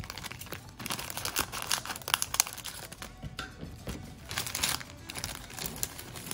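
Thin clear plastic parts bag crinkling and rustling in the hands as it is opened and clear plastic parts are pulled out of it, with irregular small crackles throughout.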